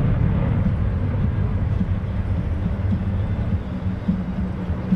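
F-22 Raptor's twin F119 turbofans in afterburner during a steep climb-out after takeoff: a loud, deep jet rumble that slowly fades as the jet climbs away.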